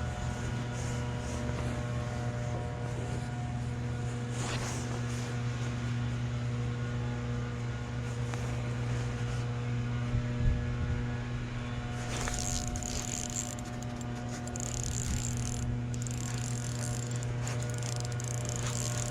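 A boat motor running steadily with a low, even hum, and one short knock about ten seconds in.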